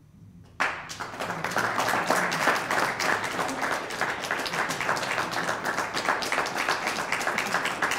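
Audience applauding, breaking out suddenly about half a second in and going on as dense, steady clapping.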